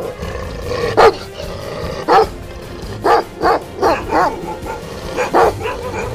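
Bhotia dog (Himalayan sheepdog) barking repeatedly: single barks about a second apart, then quicker in twos and threes from about three seconds in, with music underneath.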